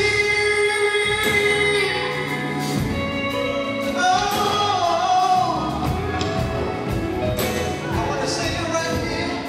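Live gospel singing: a male lead vocalist with a vocal group, backed by a live band of drums, electric guitar, bass and keyboard. The lead holds a long note at the start, then sings runs that rise and fall.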